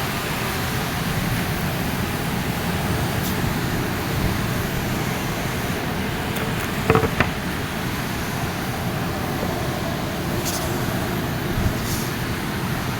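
Table saw running steadily, with two sharp clicks close together about seven seconds in.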